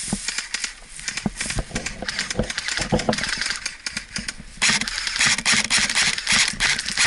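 Irregular crackling and clicking with rustling, thickening into a denser, louder hiss about two-thirds of the way through.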